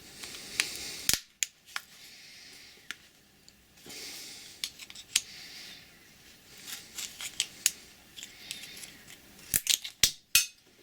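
Sharp clicks, snaps and scraping of hand tools working at a small electrical component to force it open, with a few louder snaps about a second in and near the end.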